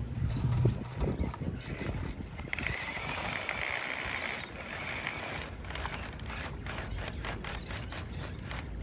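Small-scale RC truck crawling over dirt and rocks: its electric motor and gearbox whine, and the wheels click and knock on stones. A steadier, higher whine comes in a couple of seconds in and lasts about two seconds, followed by a run of quick ticks.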